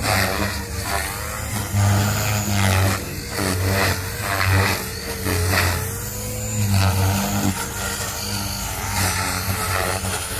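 Gaui X3, a 360-size electric RC helicopter, flying: the chop of the main rotor blades and the motor's whine, swelling and fading and gliding up and down in pitch as it manoeuvres.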